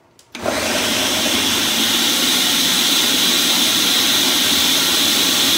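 Countertop blender switched on with a click, then running steadily and loudly from about a third of a second in, chopping tomatoes, peppers and onion with no water added.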